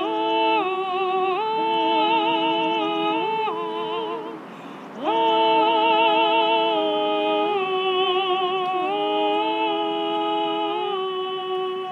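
Two women singing unaccompanied in two-part harmony, slow held notes with vibrato that step from pitch to pitch, with a short break for breath about four seconds in.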